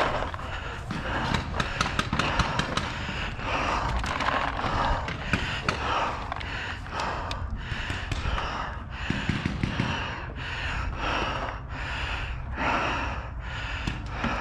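A paintball player breathing hard close to the microphone, in quick breaths about once a second. Scattered sharp pops of paintball markers firing run through it.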